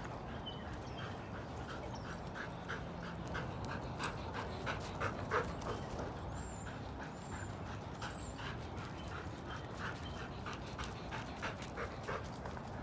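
A dog panting rhythmically, about three breaths a second.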